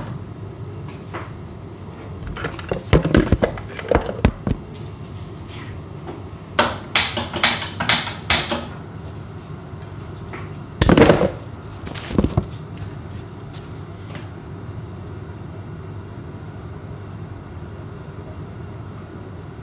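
Handling noises from gloved hands working a plastic bottle of cooking oil: scattered rustles, crinkles and knocks, densest about seven to eight seconds in, with a louder burst around eleven seconds, over a steady low hum.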